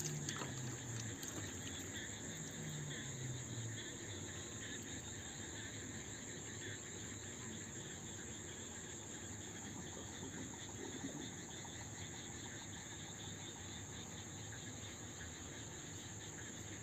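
Steady chorus of crickets, a continuous high-pitched trill that does not let up.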